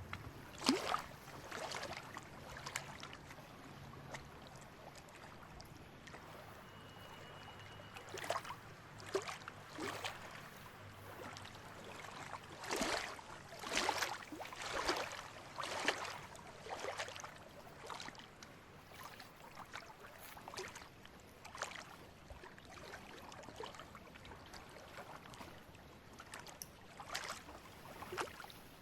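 Lake water lapping and splashing in small, irregular slaps, some clustered and louder around the middle.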